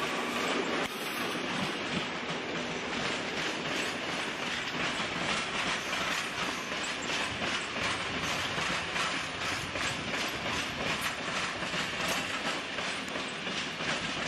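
Yellow Netherlands Railways electric multiple-unit train rolling past over the station tracks and points. Its wheels clatter in a steady run of rapid clicks over the rail joints and switches. The sound begins to fall away as the last car clears, near the end.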